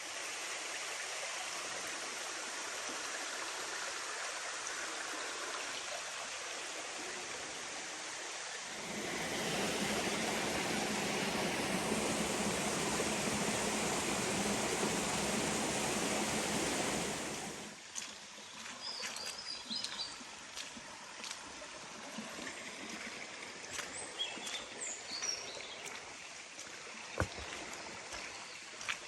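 Steady rush of water from a moorland beck and waterfall. It gets louder and fuller about a third of the way in, then drops sharply about two-thirds through. Birds chirp over the quieter flow after that, with a few light clicks.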